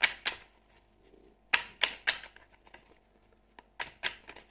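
A deck of tarot cards being shuffled overhand in the hands: crisp slaps of cards against the deck in small groups of two or three, with pauses of about a second between.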